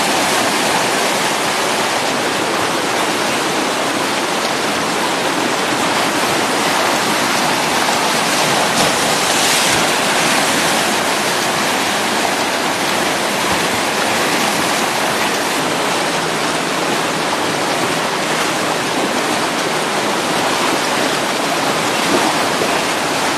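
Whitewater rapids rushing: a loud, steady wash of churning river water, swelling briefly about ten seconds in.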